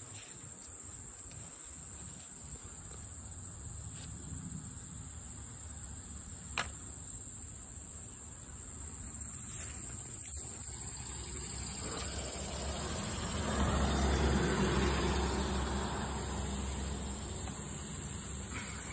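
Insects singing in a steady high-pitched trill. Over it runs a low rustling rumble that swells from about twelve seconds in and fades after fifteen, with one sharp click about six and a half seconds in.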